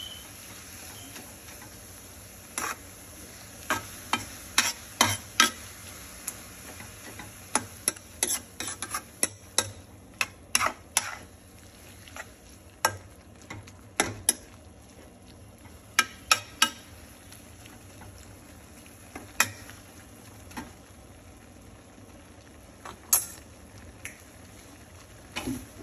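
Slotted metal spoon stirring shredded beef and chopped vegetables in a metal skillet, clinking and scraping against the pan at irregular intervals over a steady low sizzle. The clinks come thickly at first and thin out in the second half.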